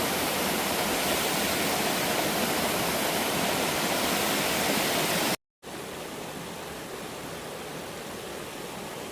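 Steady rush of water from a waterfall. About five seconds in it cuts out for a moment, then carries on noticeably quieter.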